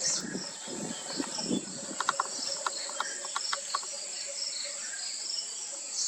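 Insects trilling steadily at a high pitch, with a repeating chirp just below the trill. A quick series of short, sharp notes comes about two to three and a half seconds in, and there is a low rumble in the first second and a half.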